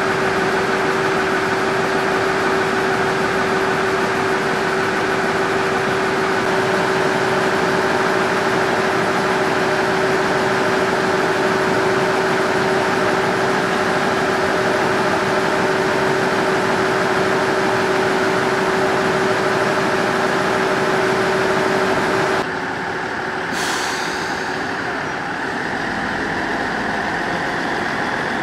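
Ise Railway Ise III-type diesel railcar idling at a standstill: a steady engine drone with a constant hum. About 22 seconds in the hum cuts off and the sound drops a little, and a short high hiss follows a second later.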